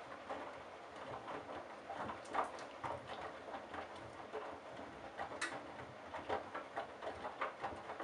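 Candy GrandO Simply-Fi front-loading washing machine tumbling wet laundry in its drum: water sloshing and splashing in an uneven rhythm, with louder splashes about two and a half and five and a half seconds in.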